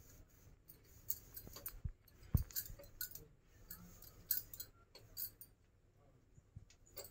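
Bangles clinking lightly in irregular ticks as hands roll a log of layered dough on a granite counter, with one dull knock about two and a half seconds in.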